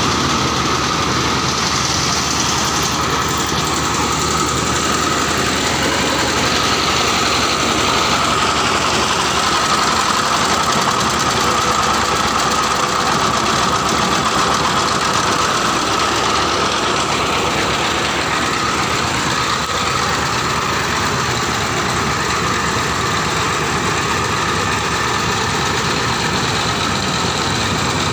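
Disk mill grinder with its dust blower running steadily under load: a loud, even mechanical roar with a steady hum.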